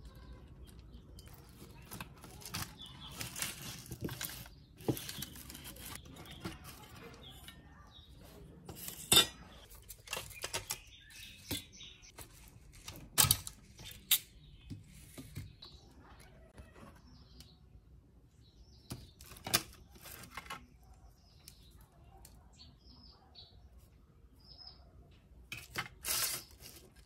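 Plastic and metal parts of a cassette stereo unit clicking, rattling and scraping as the unit is taken apart by hand. A few sharp clicks are spread through, and there is a short burst of clatter near the end.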